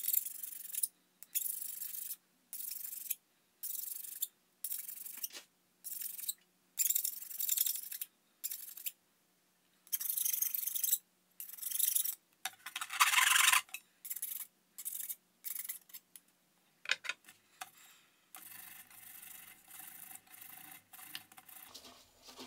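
Thin steel clutch-pack shim for a GM NP246 transfer case being rubbed against an abrasive in short, even strokes, a little over one a second, to take the burred edge off so it sits flat. One louder stroke comes about halfway through, and the strokes turn softer and steadier near the end.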